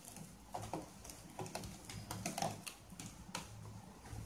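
Bread slices topped with cheese and corn toasting on a hot non-stick tawa, giving faint, irregular crackling ticks, two or three a second.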